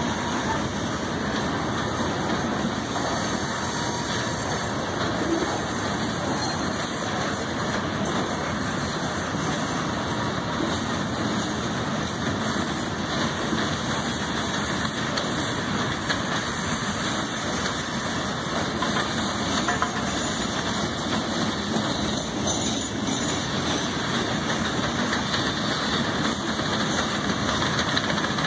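Freight train's open-top hopper cars rolling past at steady speed: a continuous noise of steel wheels on rail.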